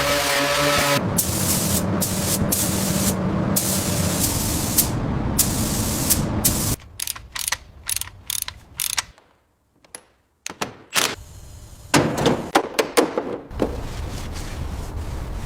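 Workshop noises from a car restoration: a steady hiss for the first several seconds, then a string of sharp clicks and knocks, broken by a brief silence in the middle.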